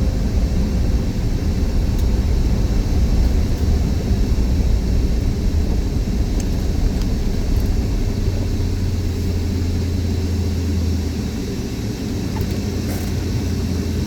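Car on the move, heard from inside the cabin: a steady low engine and road rumble, with a steadier drone for a few seconds past the middle.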